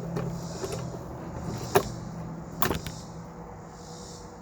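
Sharp clicks about a second in and again near the middle, the second one doubled: an old 1936 German primer being struck and failing to go pop, a dud from degraded priming.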